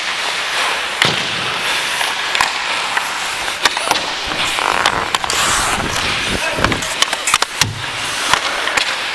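Ice hockey skates scraping and carving on the ice, with many sharp clacks of sticks and puck, heard close up from a player-worn camera.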